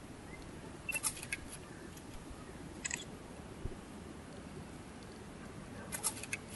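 Small sharp clicks of the Panasonic Lumix ZS20's buttons being pressed: a few about a second in, one near the three-second mark, and another few near the end, as movie recording starts. A faint room hiss runs under them.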